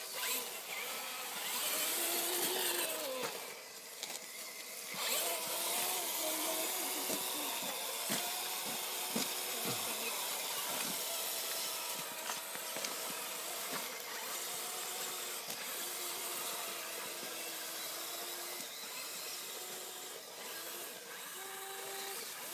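Electric motor of a radio-controlled off-road truck whining as it drives over snow and mud, its pitch rising and falling with the throttle, over a steady hiss.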